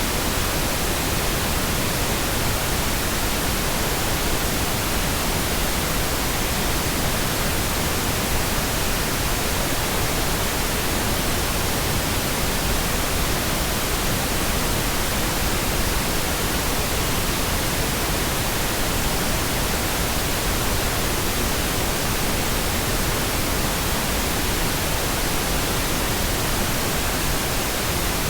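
Steady, unchanging pink noise: a continuous even hiss spread across all pitches, with no events or changes.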